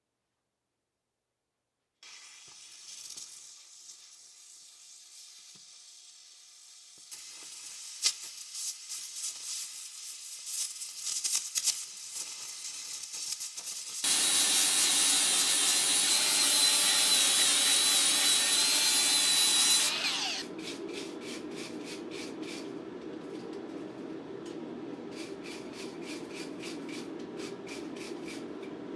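Shop work sounds: scraping and clicking, then a power tool running loudly for about six seconds and winding down with a falling pitch. After it comes a steady low rushing noise with rapid ticking.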